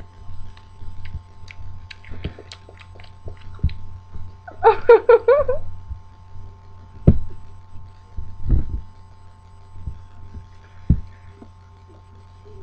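A boy eating a Star Crunch (chocolate-covered crisped-rice snack cake): small crunchy clicks of chewing, a brief wavering hummed voice about five seconds in, and a few dull thumps later, over a steady faint electrical hum.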